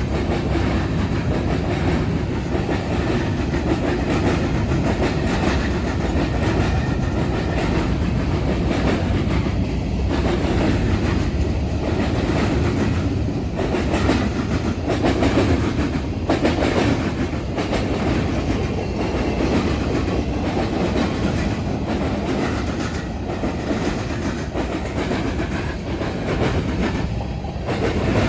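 BNSF freight train's cars rolling past steadily, their wheels clacking irregularly as they cross a railroad diamond.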